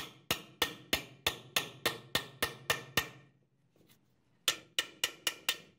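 Hammer blows on a steel punch driving the old wooden handle out of the eye of a rusty hammer head clamped in a vise. There are about a dozen ringing metal strikes at about three a second, a short pause, then five quicker strikes near the end.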